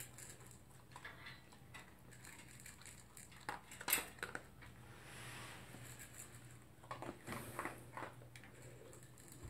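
Poodle eating dry kibble from a plastic slow-feeder bowl: faint scattered clicks and clatters of kibble and muzzle against the bowl, loudest about four seconds in and again around seven to eight seconds in.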